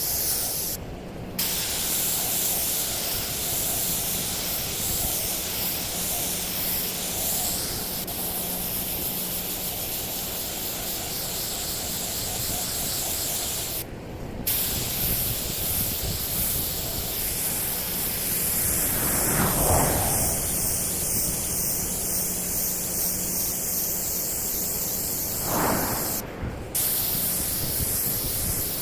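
Compressed-air paint spray gun hissing steadily as paint is sprayed on, broken by brief trigger releases about a second in, about 14 seconds in and near the end.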